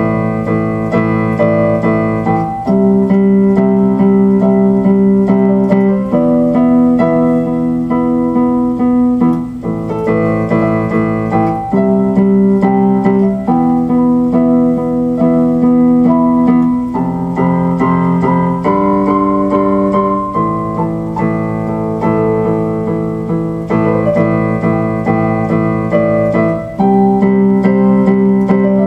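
Background music: electric piano or keyboard playing slow sustained chords, changing every two to three seconds.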